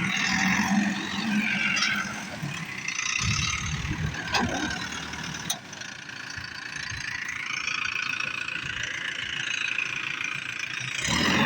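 JCB backhoe loader's diesel engine running, with a whine that rises and falls and a few short knocks.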